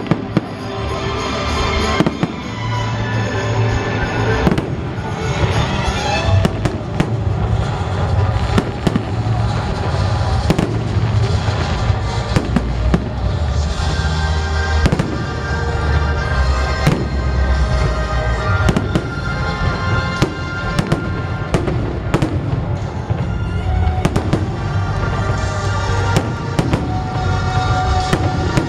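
A fireworks display: shells bursting in frequent sharp bangs, several a second at times, over loud music with a heavy bass line.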